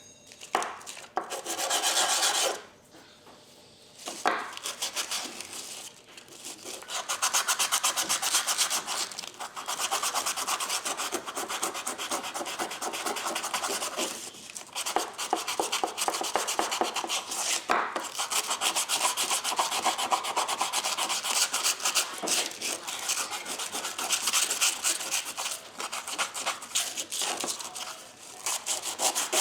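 The frog of a Diamond Edge hand plane being rubbed back and forth on sandpaper laid on a flat surface to clean and flatten it: fast, even scraping strokes. A short burst comes first, then after a brief pause the strokes go on almost without a break.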